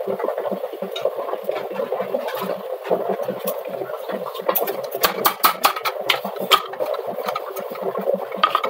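Ground rice flour being sifted: a hand sieve shaken quickly back and forth makes a fast, rhythmic rasping. About five seconds in, a steel mixer-grinder jar is knocked sharply against the sieve several times to empty out more flour.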